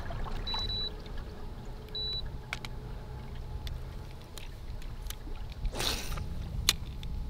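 Two short electronic beeps from a handheld trolling-motor remote (Old Town AutoPilot) as buttons are pressed, over water lapping against the kayak hull. A few light clicks and a brief rushing noise come about six seconds in.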